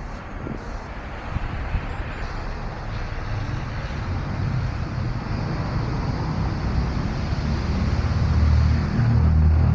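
Street traffic noise with a low engine rumble that grows steadily louder as a vehicle draws near.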